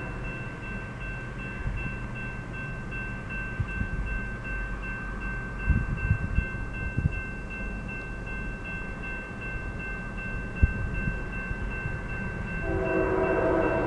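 Railroad grade-crossing warning bell ringing steadily, with a few dull low thumps in the middle. Near the end the approaching GE ES44DC locomotive's air horn starts to sound.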